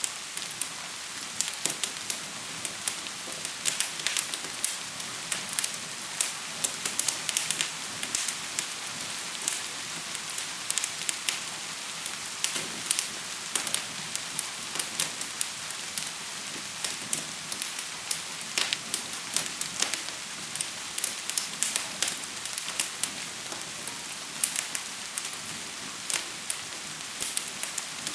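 Gentle rain falling as a steady hiss, with a fire crackling in many sharp, irregular pops.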